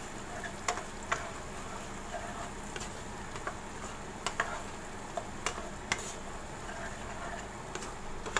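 Wooden spatula stirring chunks of fried tempe and chicken liver and gizzard in a wok, clicking and knocking against the pan at irregular moments over a steady low sizzle.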